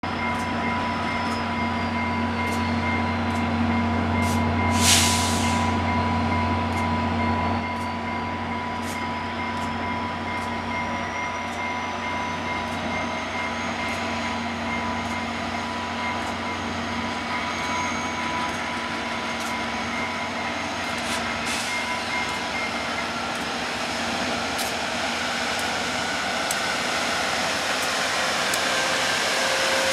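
VIA Rail GE P42DC diesel locomotive running with a steady low hum and a steady whine, with one short, sharp hiss of air about five seconds in. Near the end it grows louder as the locomotive pulls forward.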